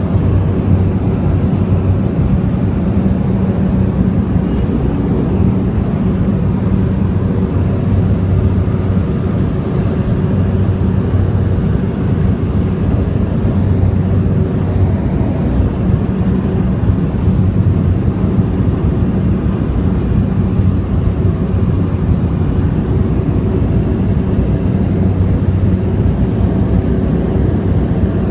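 Small propeller airplane's engines running steadily in flight: a loud, even drone with a low hum that swells and fades every few seconds.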